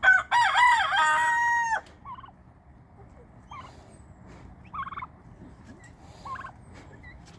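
A rooster crows once, loudly, at the start: a bending call that ends in a long held note. It is followed by several short, quieter calls from other farmyard fowl.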